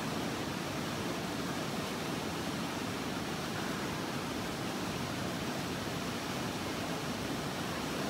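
Steady, even rushing noise with no distinct events: railway-station platform ambience.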